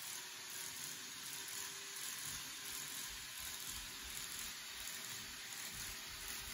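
Model 583 series electric train running along its track: a steady hissing running noise with a faint, even motor hum underneath.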